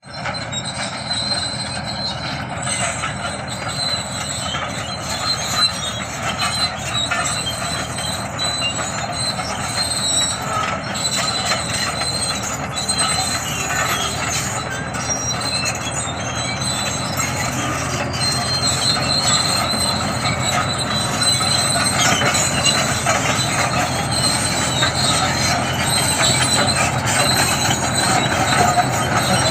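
Bulldozer at work: its steel crawler tracks keep up a high squeal and clanking over the running engine, growing slightly louder toward the end.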